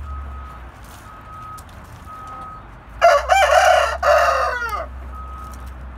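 A Hint rooster, an Asil-type game breed, crows once about three seconds in: a loud crow of about two seconds with a brief break in the middle, falling in pitch at the end.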